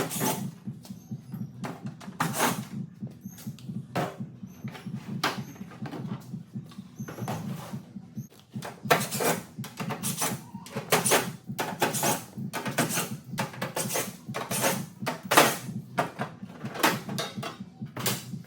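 Plastic trim and clips on an LDV T60 tailgate clicking, snapping and creaking as the panel is prised apart by hand. The sharp snaps come irregularly and get more frequent and louder in the second half, over a steady low hum.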